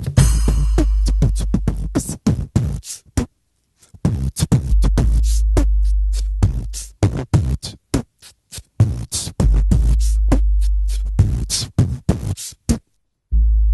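Background music without vocals: rapid, sharp clicking percussion over long, deep bass notes. The music drops out briefly about three seconds in and again just before the end.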